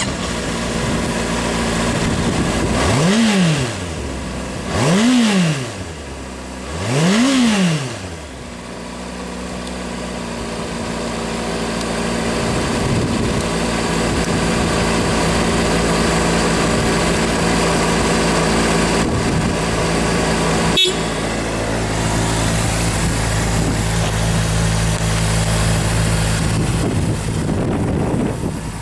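Honda CBR600RR's 599 cc inline-four running through its stock exhaust: three quick throttle blips, each rising and falling in pitch about two seconds apart, then a steady idle.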